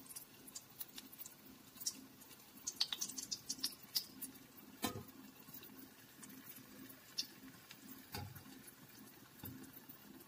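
Cashew appam batter frying in groundnut oil on a low flame: a faint sizzle with scattered crackling pops, busiest a couple of seconds in, and a few sharper pops later.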